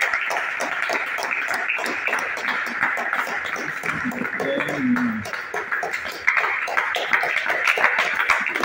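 A small group of people clapping continuously with voices mixed in; the clapping thins out in the middle and picks up again about six seconds in.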